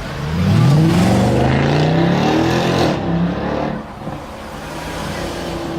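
Sports car engine accelerating hard, its pitch climbing for about three seconds. Then the sound drops away and settles to a lower, steady note.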